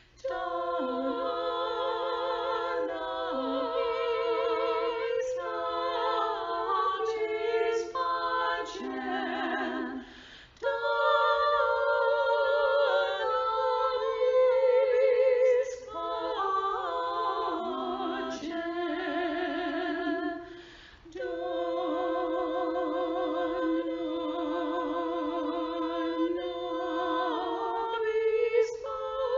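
Several voices singing a hymn in harmony, with long held notes and vibrato. The phrases break briefly about ten seconds in and again about twenty-one seconds in.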